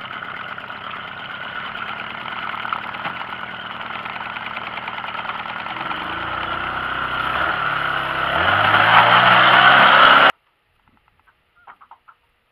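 A small fishing boat's outboard motor runs under way with wind and water rush, throttling up over several seconds so that its pitch climbs and the noise grows louder. It cuts off abruptly near the end, leaving near silence with a few faint ticks.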